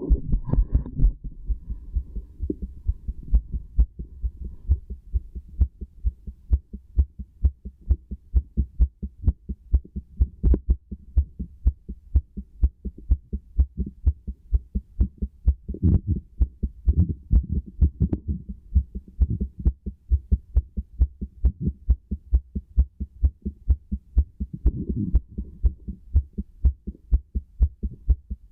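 Human heartbeat heard through a stethoscope: a steady, regular lub-dub of dull thumps, with a few brief patches of low rustling noise.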